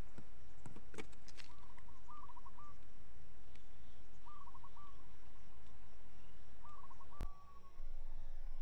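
A bird calling three times, each call a quick run of short notes, over a steady background hiss. A single sharp click comes about seven seconds in, after which the hiss drops away.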